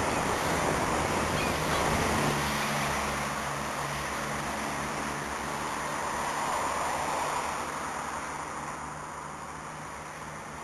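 Surf and wind noise on the microphone at a rocky seashore, a steady rushing hiss, with a low steady hum joining in about two seconds in.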